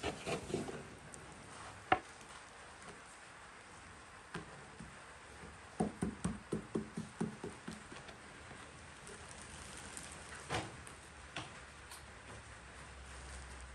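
Light handling sounds of flatbread-making: a few clicks of a spoon spreading butter at first and one sharp tap about two seconds in, then a quick run of about ten soft pats near the middle as hands press folded flatbread on a wooden board, with a couple of knocks later.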